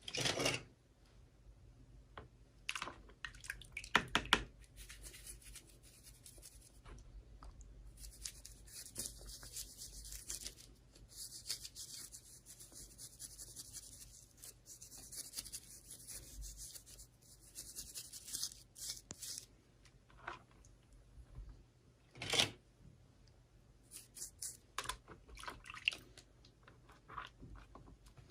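Packaging being handled during an unboxing: scattered clicks and knocks, and two long stretches of tearing and crinkling, the second lasting several seconds.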